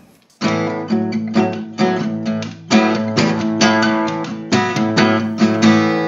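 Background music: a guitar strumming chords in a steady rhythm, starting about half a second in, with the last chord left ringing near the end.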